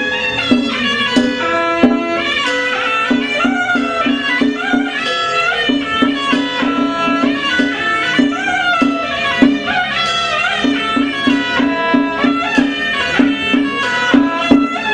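Traditional Taoist ritual music: a bending, sliding melody line over a quick, repeated low note that comes in short runs.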